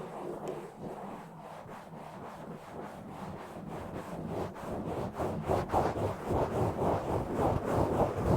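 Fast, rough scratching and rubbing directly on a microphone's body or grille. About halfway through it turns into quick, even strokes, about four to five a second, and grows louder.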